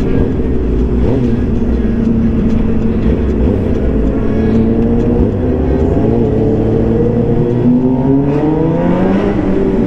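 Suzuki GSX-R 750's inline-four engine running under way, heard from the bike. Its pitch holds steady, then climbs over the last few seconds as the bike accelerates.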